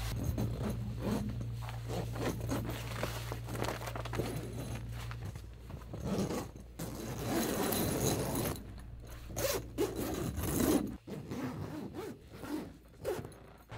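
Zippers on a shelter tent's window panels being pulled open in quick irregular strokes. The clear vinyl and fabric panels scrape and rustle as they are gathered up.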